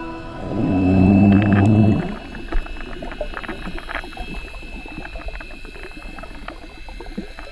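Underwater sound picked up by a GoPro in its waterproof housing: a loud, low hum for about a second and a half near the start that cuts off suddenly, then a steady crackling hiss of water full of small clicks.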